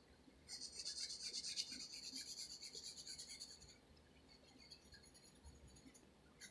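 Graphite pencil scratching on paper in rapid back-and-forth shading strokes for about three seconds. It then drops to a few light, scattered strokes.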